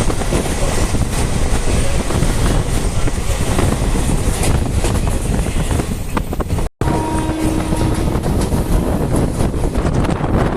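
A moving passenger train running on the track with a steady rumble and rattle. The sound drops out for a split second about two-thirds of the way through, then carries on.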